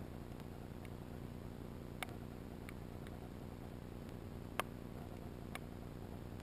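Underwater sound over an oyster reef: a faint steady low rumble and hiss, broken by a few sharp isolated clicks, the loudest about four and a half seconds in.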